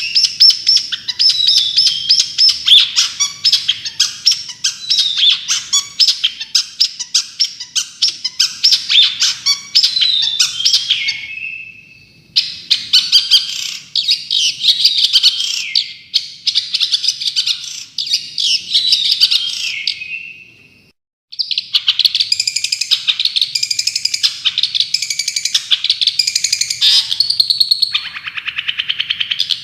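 Recorded songbird song in rapid-fire 'tembakan' bursts: fast runs of short, sharp chirps and quick whistled slides, high-pitched. There is a brief pause about 12 s in, and the song cuts off abruptly for about a second just after 20 s before resuming.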